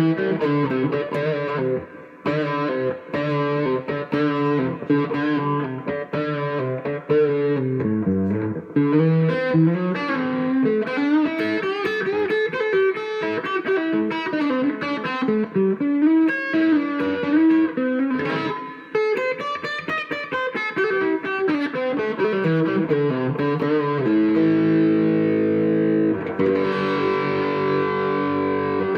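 Gibson SG electric guitar played through an amplifier: quick single-note runs with some bends, then held ringing notes from about 24 seconds in.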